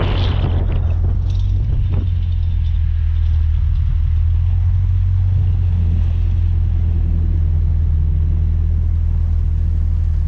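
A motor vehicle's steady low engine and road drone, with a wash of higher noise that fades during the first couple of seconds.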